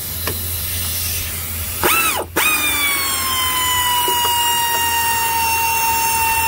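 Electric power tool motor whining: a short burst, a brief stop, then a steady run of about five seconds whose pitch sags slightly under load before it cuts off.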